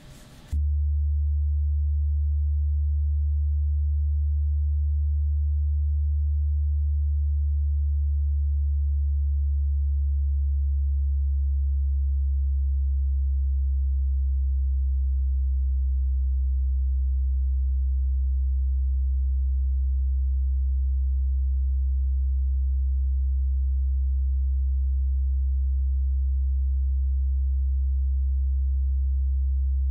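A single deep, steady sine-wave drone from an experimental electronic recording, held at one very low pitch without change. It begins about half a second in.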